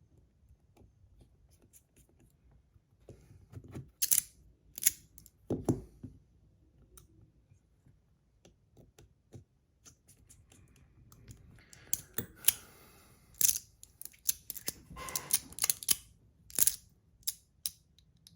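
Irregular sharp clicks and clacks of a magnetic fidget slider being handled, its magnets snapping against the metal parts, with a short scraping rustle about twelve seconds in.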